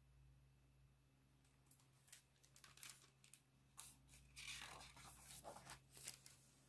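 Faint paper handling as a picture book's pages are turned: a few light ticks from about two seconds in, then soft rustling over the next few seconds.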